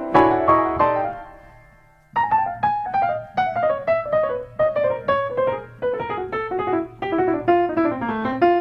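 Piano music. A few struck chords ring and fade almost to silence, then about two seconds in a quick run of notes starts, with a melody stepping downward.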